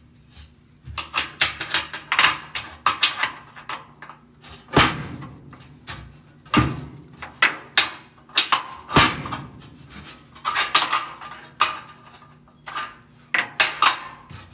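Metal hold-down clamps and bolts clinking, knocking and scraping as they are handled and tried in place, in an irregular run of clanks with a few heavier knocks.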